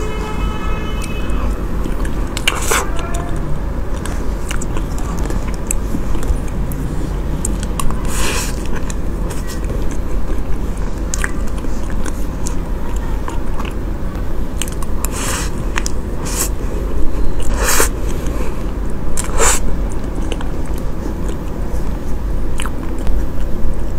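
Close-miked chewing and mouth sounds of someone eating soft chocolate mousse cake, with scattered sharp wet clicks and smacks over a steady hiss.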